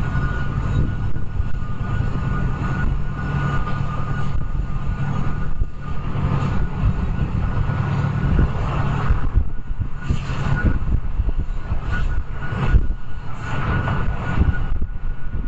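Canadian National freight train on the move: a steady low rumble of diesel engines and rolling cars, with a steady high whine and irregular clanks.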